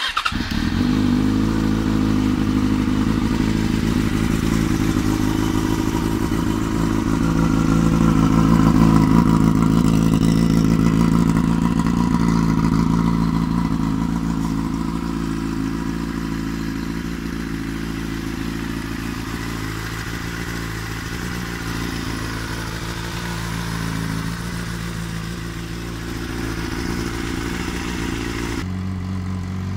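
Yamaha FZ6 S2's 600 cc inline-four, breathing through an aftermarket Mivv slip-on silencer, starting at once and then idling steadily. The level swells a little around ten seconds in and then eases lower.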